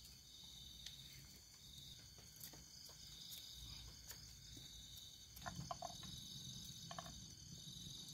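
Night insects, crickets, chirping: a steady high trill with a pulsed chirp about once a second. A few faint clicks and taps come through about two-thirds of the way in.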